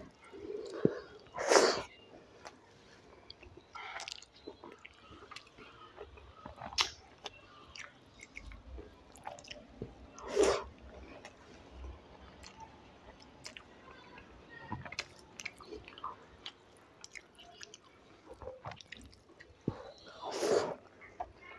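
Close-miked eating sounds of rice, dal and fried potato eaten by hand: chewing with wet mouth clicks and smacks. Three louder moments come about ten seconds apart.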